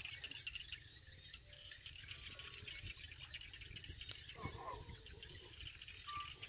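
Insects chirring steadily in a fast, even trill, faint, over a low background rumble.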